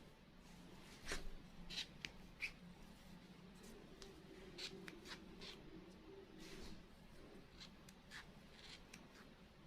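Faint rustling and small scattered clicks of a crochet hook and yarn being worked by hand, over a low steady room hum.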